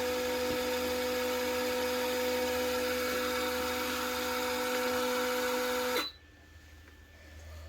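Small electric motor of a foldable mini washing machine spinning in its dryer mode, a steady high whine, switched off abruptly about six seconds in.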